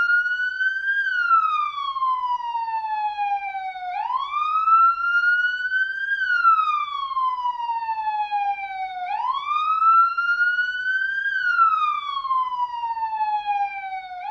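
Police car siren on wail: each cycle sweeps quickly up in pitch, then falls slowly, repeating about every five seconds.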